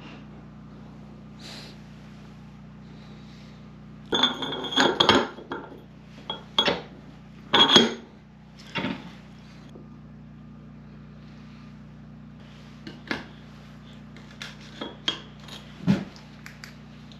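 Steel parts clinking and clanking together as a steel shaft is handled and fitted inside a steel pipe held in a bench vise, with a burst of ringing metal knocks about four seconds in, a loud clank near eight seconds and lighter taps near the end, over a steady low hum.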